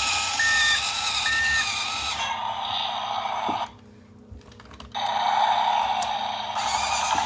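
Electronic sound effects from a CAT Machines toy bulldozer's small speaker: a reversing beep repeating a little under once a second, then a noisy engine sound that cuts out for about a second near the middle and comes back.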